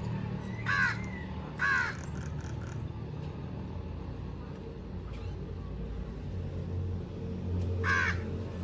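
A crow cawing: two caws about a second apart near the start, and one more near the end.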